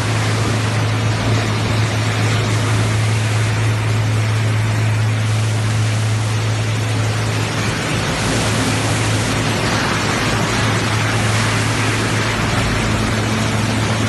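PE film recycling and washing line running: steady machinery noise with a low hum throughout.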